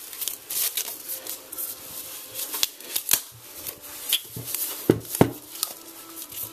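Protective wrapping being pulled off a pair of computer speakers by hand: rustling and crinkling with irregular sharp clicks and handling knocks, the loudest two about five seconds in.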